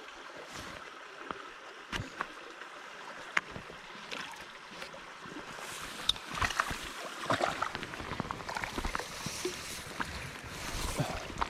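Water splashing and lapping under a steady hiss, with scattered small knocks and clicks that grow busier in the second half.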